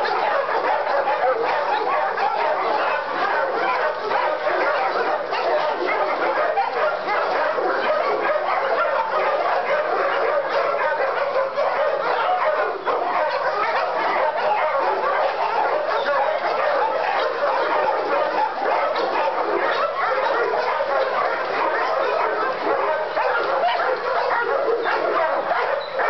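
A chorus of kennel dogs barking and yipping, many voices overlapping into a continuous, unbroken din.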